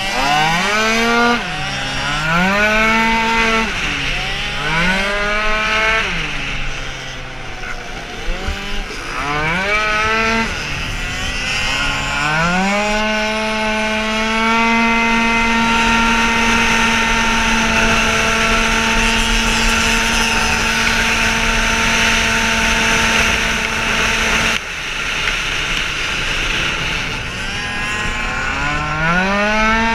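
Tuned two-stroke racing scooter engine under hard throttle, heard from the rider's helmet: the revs climb and fall back several times through the first twelve seconds, then hold one steady high pitch for about twelve seconds, drop abruptly when the throttle is shut, and climb again near the end.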